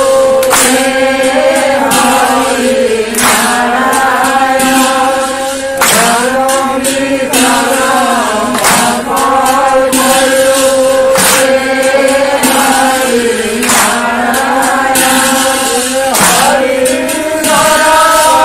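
A group of men chanting an Assamese naam-prasanga devotional song together in a held, slowly moving melody, with sharp hand claps every second or two.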